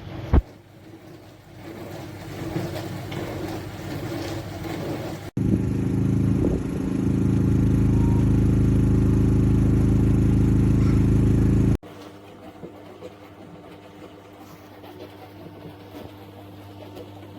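Countertop mini dishwasher running, its motor and pump making a steady hum with water washing around inside. It comes in three cut-together stretches, and the middle one, from about five to twelve seconds in, is much louder.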